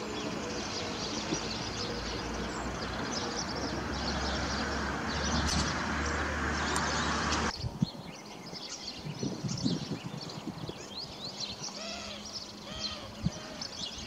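Small songbirds chirping and twittering throughout. For the first half a steady rushing noise with a low hum grows louder, then cuts off abruptly at an edit about halfway through. After that a run of repeated rising-and-falling calls comes through.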